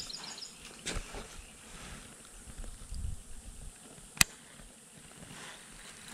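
Quiet outdoor ambience from a fishing kayak on the water, with light handling knocks and faint insect chirps at the start. One sharp click about four seconds in is the loudest sound.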